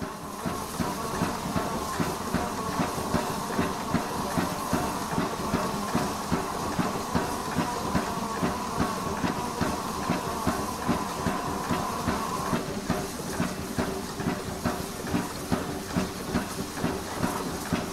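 USATC S160 steam locomotives standing in steam: a steady hiss of escaping steam with a regular beat about twice a second. A higher steady tone runs alongside and stops about two-thirds of the way through.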